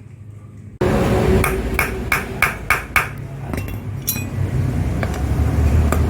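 Hammer tapping a screwdriver tip set against the nut on a fan clutch, about six quick metallic strikes that ring, roughly three a second, to knock the nut loose.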